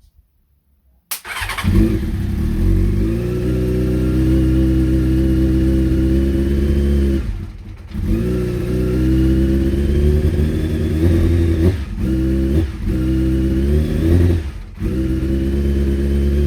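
Honda CBR600F inline-four motorcycle engine starting about a second in and running, its revs rising and falling and sagging sharply several times as if about to die. It runs unevenly, which the owner suspects means the carburettors need taking off and sorting.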